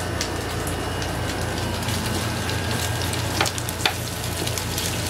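Pork belly frying on a square grill pan over a gas burner: a steady sizzle, with a couple of sharp clicks of the metal tongs against the pan about three and a half seconds in.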